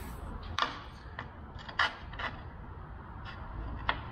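A handful of short, separate clicks and light taps as a small bent metal bracket is handled and set against the plywood headrest to test its fit.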